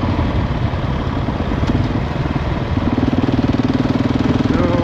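Husqvarna 701's single-cylinder four-stroke engine running as the motorcycle is ridden off-road. The note is rough at first, then settles into a steady, even pulse about three seconds in.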